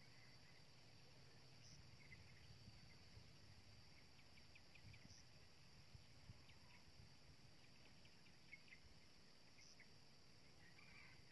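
Near silence with a faint, steady high drone of insects and a few faint scattered ticks and chirps.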